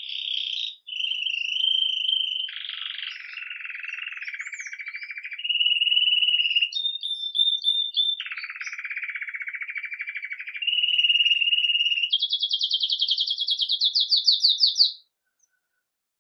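Belgian canary singing its 'campainha' (bell) style song: a run of long rolled trills that switch back and forth between higher and lower pitches, ending in a fast high trill and stopping about fifteen seconds in.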